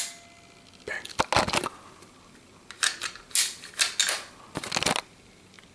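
Walther PPQ M2 striker-fired pistol being worked by hand while empty. A sharp trigger click comes at the very start. Then a series of short metallic clicks and clacks follows in two bunches as the slide is pulled back and let forward to reset the striker.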